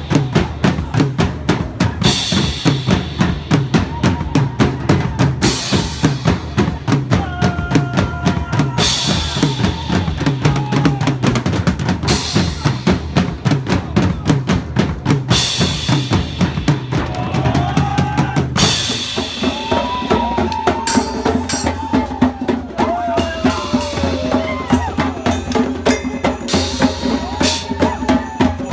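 Loud drum-heavy music with a fast, steady beat of bass drum and snare. About two-thirds of the way through, the music changes: the deepest bass thins out and a higher melody line comes in over the beat.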